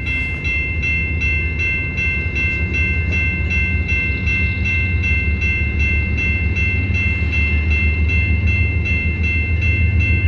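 Railway level-crossing warning bell ringing in an even, rapid rhythm of about three rings a second. Under it runs a steady low rumble from the approaching freight train's locomotive, growing slightly louder near the end.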